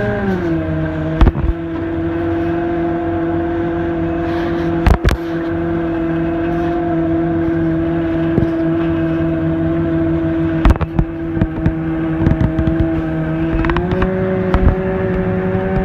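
Parasail tow boat's engine running steadily. Its note drops right at the start and rises a little near the end. A few sharp thumps, the loudest sounds here, cut across it.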